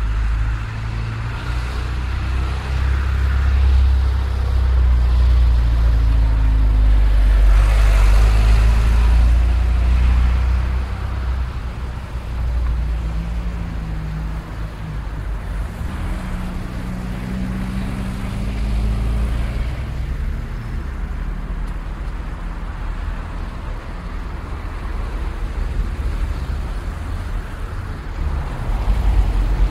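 City street traffic: motor vehicles running and passing with a steady low rumble, one passing close about eight seconds in.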